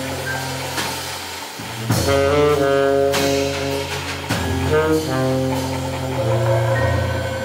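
Live small jazz band playing: a saxophone holds melody notes over upright double bass, piano and drum kit, with a few sharp drum or cymbal hits.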